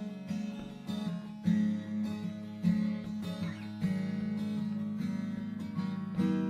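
Background music: acoustic guitar strumming a steady, gentle rhythm.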